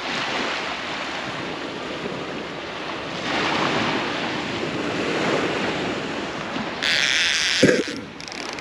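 Surf washing on the beach: a steady rush of waves that swells about three seconds in, with wind on the microphone. Near the end comes a brief burst of hiss and a dull thump.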